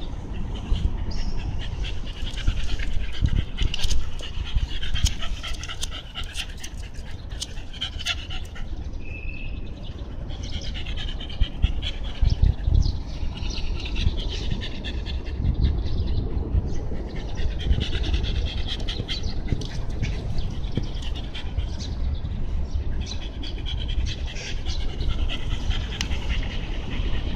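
Shiba Inu panting in quick, rhythmic breaths, in several spells, over a steady low rumble.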